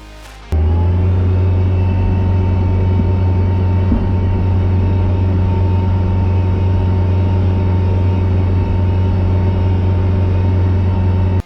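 Engine of a snow-plowing vehicle running at a steady speed, a loud, even drone with a strong low hum. It cuts in sharply about half a second in and stops abruptly at the end.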